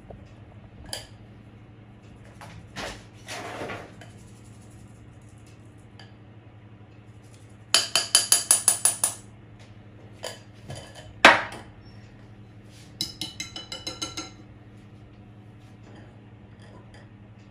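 Small metal mesh sieve of flour knocked against a glass mixing bowl to shake the flour through: a quick run of about ten metallic clinks, one louder knock a couple of seconds later, then another run of clinks.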